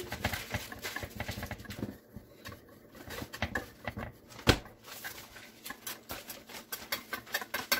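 Wire whisk beating egg yolks in a stainless steel bowl: fast runs of metal clicks and scrapes, thinning out in the middle with one louder clink, then picking up again near the end.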